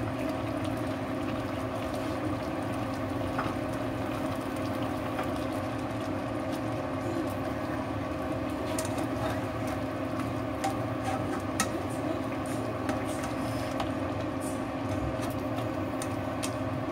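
Chicken stew simmering in a nonstick wok on an induction cooker, under a steady hum from the cooker. A slotted spatula stirs in tomato wedges, giving scattered light clicks and scrapes against the pan, with one sharper knock about two-thirds of the way through.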